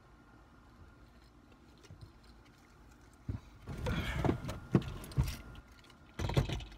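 A person climbing into a car's driver's seat: irregular rustling and knocks starting about halfway through, with a heavy thud near the end.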